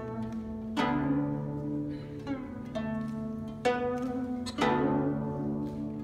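Guzheng played solo: separate plucked notes with sharp attacks ring out over a low sustained note, the strongest plucks about a second, three and a half seconds and four and a half seconds in. A few notes around the middle slide in pitch.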